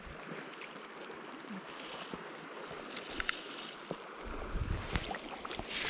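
River water running steadily, with low wind buffeting on the microphone from about four seconds in and a brief rush of noise near the end.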